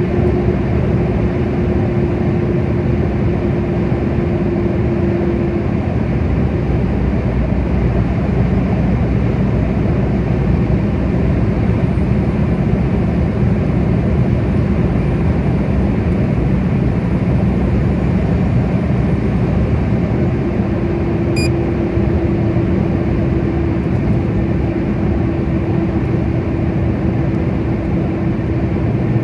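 Car driving at motorway speed, heard from inside the cabin: steady tyre and engine noise, with a steady low hum that fades out about five seconds in and comes back about two-thirds of the way through.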